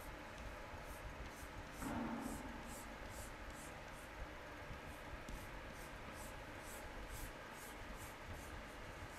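Chalk on a chalkboard: short, scratchy strokes repeated about two or three times a second as a drawing is shaded in.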